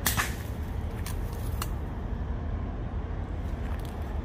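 An air rifle fires a single sharp shot, likely at an iguana, followed about a second and a half later by two fainter clicks, over a steady low rumble.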